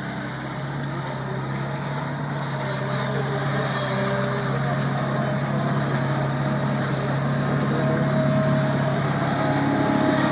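Bobcat 743 skid steer loader's diesel engine running steadily, growing gradually louder.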